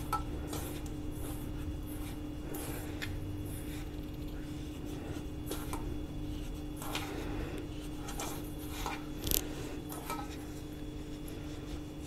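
Fingers rubbing ghee into a dry flour mix in a stainless steel bowl: soft, intermittent rustling and scraping, with a sharper scrape about nine seconds in, over a faint steady hum.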